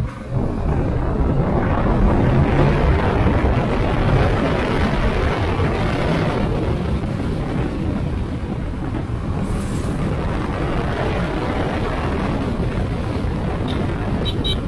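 A Kawasaki Ninja 650's parallel-twin engine running at road speed, heard from the rider's seat under a steady rush of wind over the microphone. It starts abruptly and holds steady throughout.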